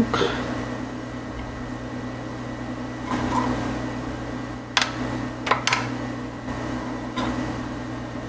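Small steel mill parts being handled: a sharp click right at the start, then a few light metallic taps and clicks from an Allen wrench, screw and thrust washer about five to seven seconds in, over a steady background hum.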